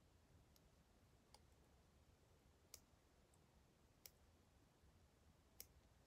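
Near silence with five faint, irregular clicks: fingers tapping and pressing on a smartphone in its plastic case.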